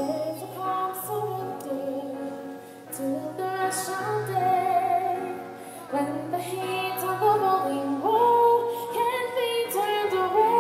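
Live stage music: a woman singing a melody over instrumental accompaniment.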